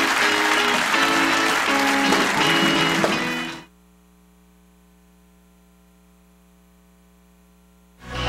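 Studio house band playing a guitar-led tune over audience applause as the show goes to a break, fading out about three and a half seconds in. A faint steady hum follows, and music starts up again at the very end.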